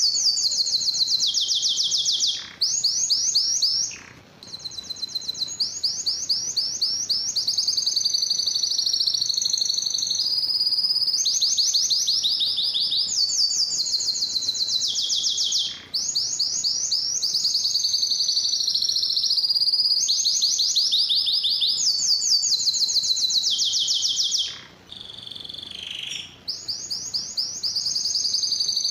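Domestic canary singing a long song of fast trills, each a rapid run of evenly repeated high notes, moving from one rolled phrase to the next every few seconds with a few short breaks.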